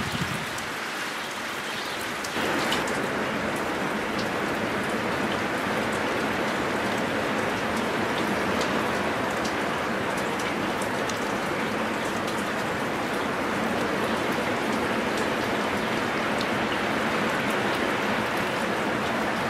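Storm wind rushing through spruce and birch trees: a steady, dense rush with scattered small ticks. It gets louder about two seconds in and then holds steady.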